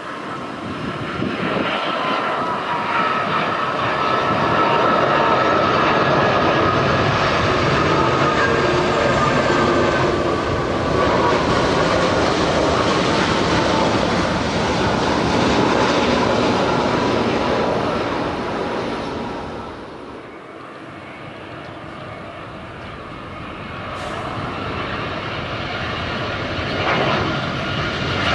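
Airliner on landing approach passing close by: the Airbus A330-300's Rolls-Royce Trent 700 turbofans give several steady whining tones over a rushing roar, swelling over the first few seconds and then holding. About two-thirds through the noise drops away, and a second jet, an Airbus A320 on approach, builds up again near the end.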